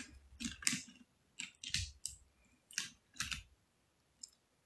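A few quiet, scattered clicks and taps close to the phone's microphone, about eight in all, typical of a phone being handled or its screen tapped.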